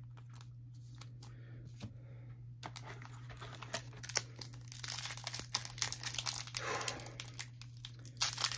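A foil trading-card pack wrapper being handled and torn open: crinkling and tearing full of small crackles, starting about two and a half seconds in after a few light clicks of a plastic card sleeve. A steady low hum sits underneath.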